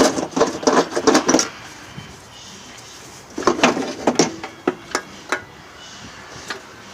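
Metal clanking and knocking as a steel exhaust header is worked loose and pulled out from under the car: a quick run of clinks and knocks, a pause, then a few more scattered knocks.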